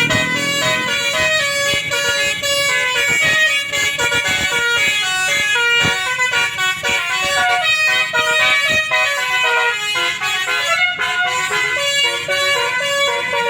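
Bus basuri musical air horn playing a fast telolet melody, its horn tones stepping from note to note in a long unbroken tune.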